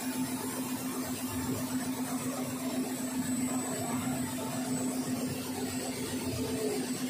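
Non-woven slitting and rewinding machine running steadily at speed: a constant whir from its rollers and rewind shafts, with a steady hum.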